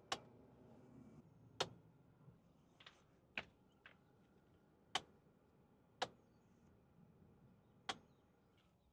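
Near silence broken by about eight faint, sharp clicks at uneven spacing, roughly a second apart.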